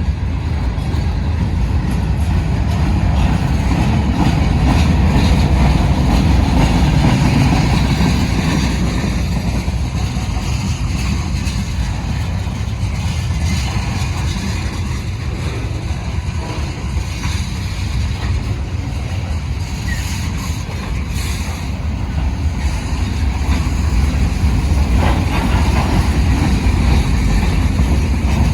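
Long BNSF freight train moving past, a steady low rumble and rattle of wheels and cars on the rails, swelling a few seconds in and again near the end.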